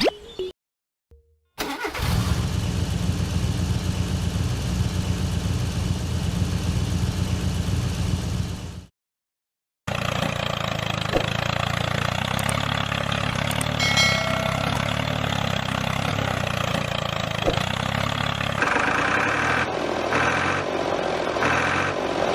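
An engine running steadily in two stretches, cut apart by about a second of silence. About three seconds before the end, a regular beeping starts, roughly once a second.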